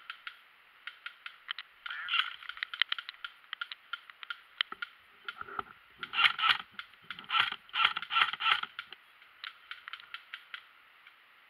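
Irregular sharp clicks and ticks, with denser clattering bursts between about six and nine seconds in.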